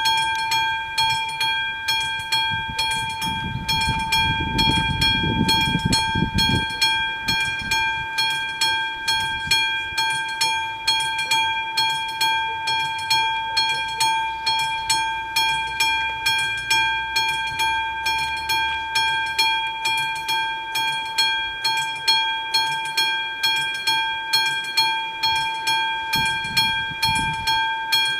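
Level-crossing warning bells of an AŽD 71 crossing ringing, a steady repeating ding that starts suddenly as the crossing activates for an approaching train.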